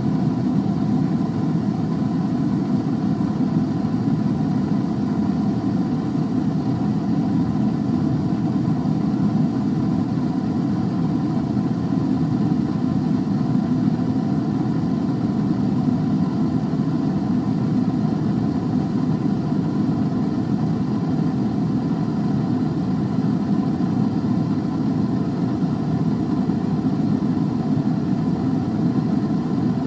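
A steady, even low hum of a running machine or motor, with no change in pitch or level.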